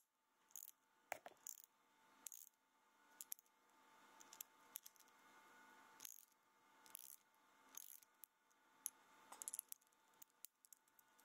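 Faint, irregular metallic clicks from a hand socket ratchet turning a bolt, with a quick run of clicks a little past nine seconds in.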